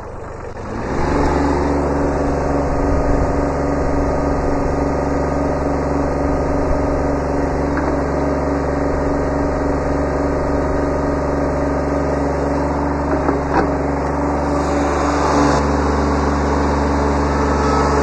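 Kubota B7100's three-cylinder diesel engine running steadily while its backhoe is worked, with a couple of light knocks about thirteen seconds in and a slight change in the engine note about fifteen seconds in.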